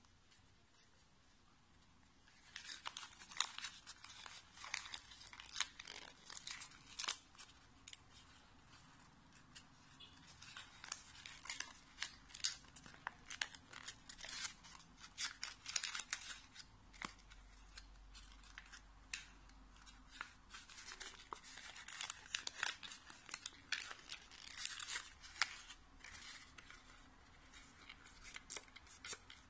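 Folded origami paper crinkling and crackling in many small, quick crackles as fingers press and turn out the petals of a paper lotus, starting a couple of seconds in.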